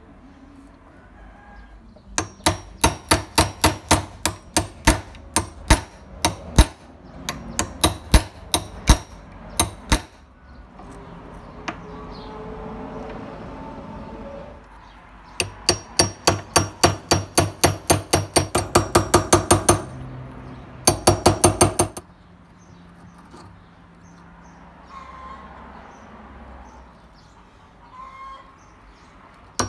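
Hammer striking a steel pin punch to drive the pivot pins out of a rusty hand punch held in a bench vise: two long runs of sharp metallic strikes, about three to four a second, then a short rapid flurry.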